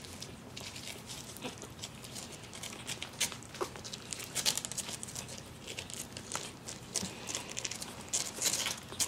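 A Mal-Shi puppy, almost three weeks old, mouthing and chewing on a finger: irregular soft clicks and rustling from the puppies squirming on fleece bedding.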